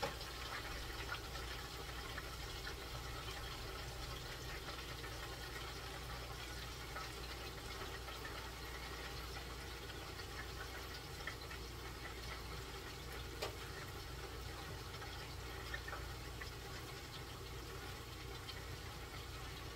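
Hot oil bubbling and crackling in an electric deep fryer as chicken fries, a steady sizzle dotted with small pops and one sharper click about two-thirds through, over a low steady hum.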